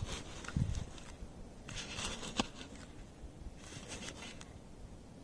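Faint rustling and scraping as gloved hands set a firecracker tube upright in dry leaves and grass against a plastic bowling pin. There is a soft bump about half a second in and a small click a little after two seconds.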